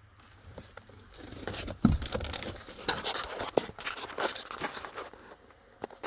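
Hands handling vehicle interior parts: irregular rustling and clicking, with a dull knock about two seconds in.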